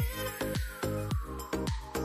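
Background electronic music with a fast, steady beat of deep bass thuds that drop in pitch, under a long tone sliding slowly downward.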